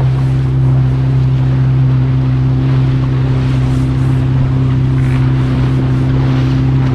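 Boat engine running steadily at cruising speed, with the hull rushing through the water: an even, unchanging drone.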